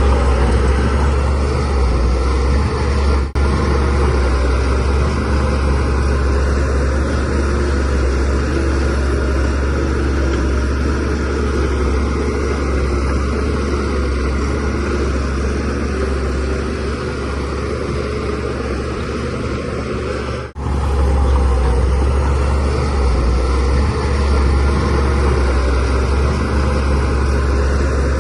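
DH17C3 bulldozer's diesel engine running steadily with a deep drone. The sound drops out for an instant twice, about three seconds in and again about twenty seconds in.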